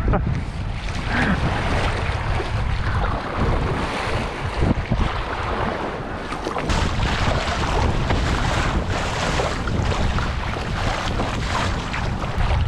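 Wind buffeting the microphone over choppy sea, with water slapping and splashing around a plastic sit-on-top kayak and paddle blades splashing as it is paddled out through small waves.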